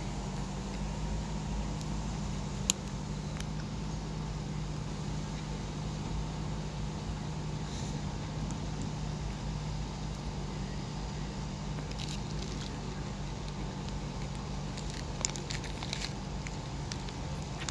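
Steady outdoor background hum and low rumble, with a constant mechanical drone underneath and a few faint, brief clicks.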